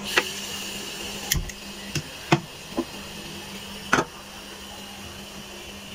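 About six separate short metal knocks and clinks as a steel saucepan is set down and shifted on a gas stove's iron pan grate.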